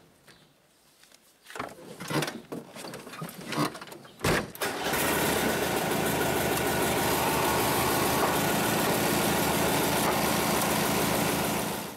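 1973 Volkswagen Beetle's air-cooled flat-four engine being started. A few knocks and clicks come first, then the engine catches about four and a half seconds in and idles steadily until the sound cuts off suddenly near the end.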